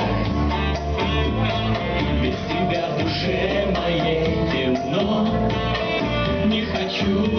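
Instrumental passage of a pop song, led by guitar over a steady backing.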